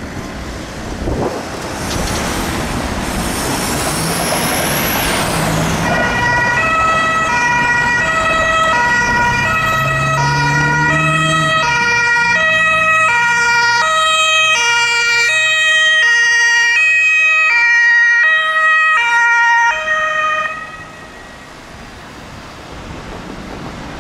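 Traffic noise, then a German Red Cross ambulance's two-tone siren (Martinshorn) comes in about six seconds in, alternating steadily between two pitches, and cuts off suddenly near the end.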